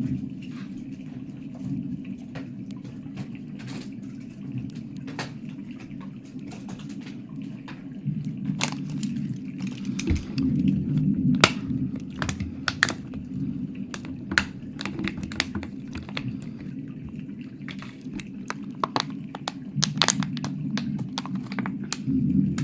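Close-miked wet mouth sounds: irregular sharp wet clicks and crackles over a steady low rumble, with the clicks growing denser about a third of the way in.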